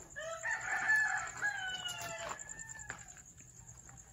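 Rooster crowing once: a single long call of about two seconds that rises briefly and then sinks slowly in pitch.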